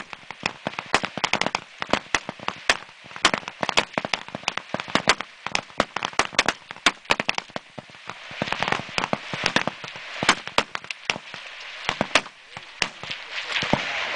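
Rifle shots from many shooters along a high-power rifle firing line during a rapid-fire string: sharp cracks coming irregularly and often overlapping, several a second.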